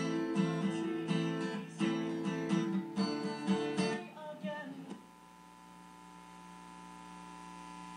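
Acoustic guitar strummed in a steady rhythm, heard through a television's speakers. About five seconds in the strumming breaks off, leaving a quieter steady held tone.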